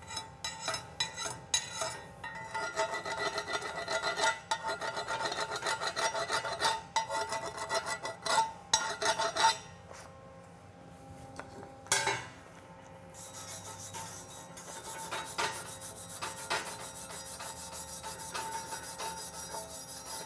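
Fresh 7018 cap weld on steel plate being cleaned of slag by hand: quick scraping and tapping strokes for about ten seconds, with the plate ringing faintly, then a short pause and a sharp knock, then steady rapid wire-brush-like scraping to the end.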